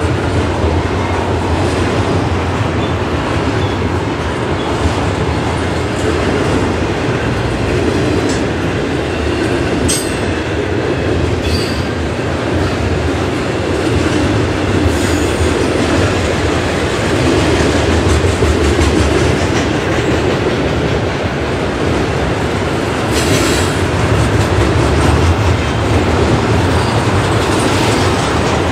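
Double-stack intermodal container train rolling past: a steady rumble and clatter of steel wheels on rail from the well cars, with a few brief high squeals from the wheels.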